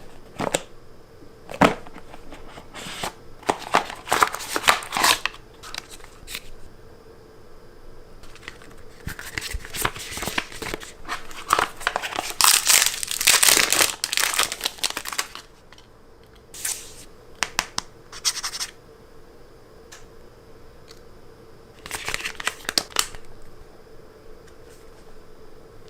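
Phone-box packaging being unboxed: plastic wrap tearing and crinkling in bursts, with clicks and knocks as the box and its parts are handled.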